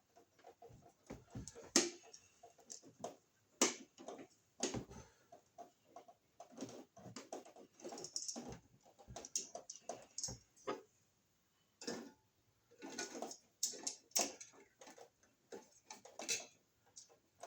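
Handling noise: irregular clicks, taps and scrapes as a GFCI receptacle and its wires are worked into a deep electrical box.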